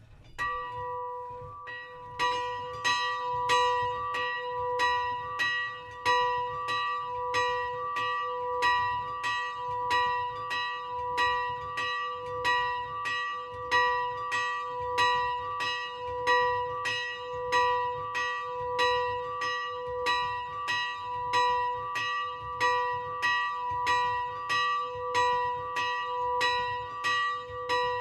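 Small bronze church bell (35 kg, 39.5 cm across, strike note B, cast in 1957) swinging and ringing, its clapper striking about every 0.7 seconds. The first strokes are softer, and it reaches full, even strikes about two seconds in.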